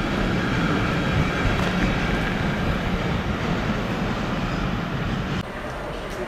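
Freight train running on the track, a steady rumble of wagons and rail noise. About five seconds in it drops abruptly to a quieter, more distant train sound.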